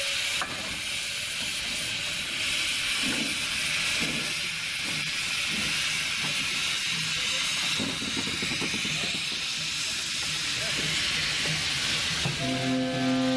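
Steam locomotive hissing steam as it runs slowly in with its train, with soft low beats under the hiss. Near the end a held musical chord comes in.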